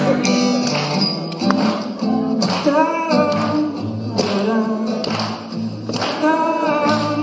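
Live acoustic guitar with a man singing into the microphone, while the audience claps along in a steady beat of sharp claps about once a second.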